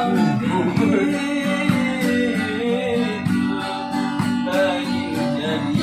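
Acoustic guitar playing a sholawat-style devotional song, with singing at times.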